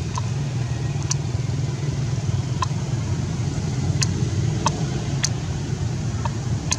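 A steady low rumble, like a running motor, with about eight short, sharp high chirps or clicks scattered through it.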